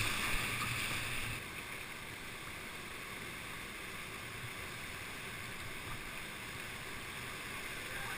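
Rushing whitewater of a big class V river rapid, heard from a kayak in the middle of it: a steady roar that is louder for the first second or so and then settles at a lower, even level.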